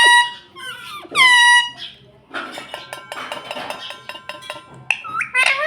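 Indian ringneck parrot calling: two loud, shrill calls in the first second and a half, then a stretch of rapid clicking and clinking, and another short call near the end.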